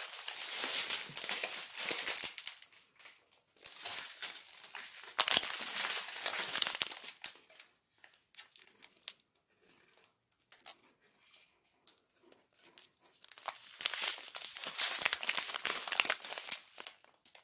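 Crinkling of strips of thin plastic bags full of diamond-painting drills as they are handled. The noise comes in bursts, with a quiet stretch in the middle.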